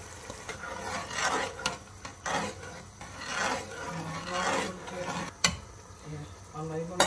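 A metal ladle stirring a wet mince-and-sweetcorn mixture in a large aluminium pot, scraping along the pot in four strokes about a second apart. A sharp knock a little over five seconds in.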